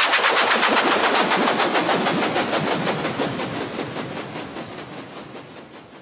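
Sound-design transition effect: a fast train of hissing, rattling pulses, several a second, fading steadily away.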